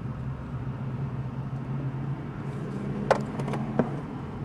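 Steady low hum, with a few sharp plastic clicks and knocks about three seconds in as the UV cure lamp and its suction-cup base are handled on the windshield glass.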